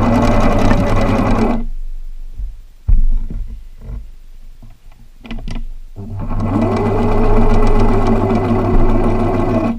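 Husqvarna zig-zag 1010 sewing machine stitching in two runs, the second winding up to speed about six seconds in. In the pause between them there is a sharp knock about three seconds in, followed by a few light clicks.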